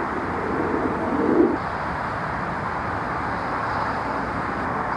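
A bird cooing once, a low call about a second and a half long at the start, over a steady background hiss.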